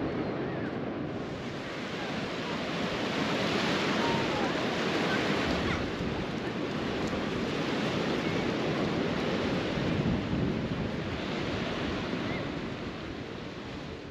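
Ocean surf washing up a sandy beach, swelling louder twice, with wind buffeting the microphone.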